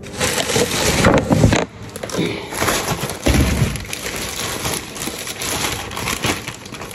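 Packaging rustling and crackling as household cleaning products are unpacked, with a couple of dull knocks from the items being handled.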